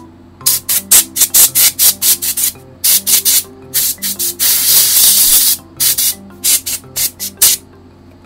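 Canned compressed-air duster blowing through its red nozzle straw into an opened gaming mouse's circuit board and scroll wheel: a rapid run of short, sharp puffs, one longer blast of about a second in the middle, stopping about three quarters of the way through.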